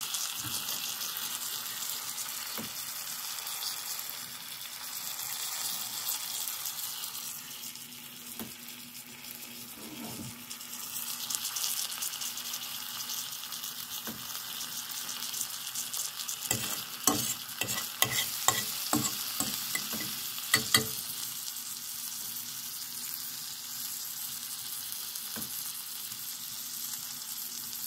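Eggs, ham and onions sizzling in a metal skillet. A fork clinks and scrapes against the pan in a run of sharp clicks about two-thirds of the way through.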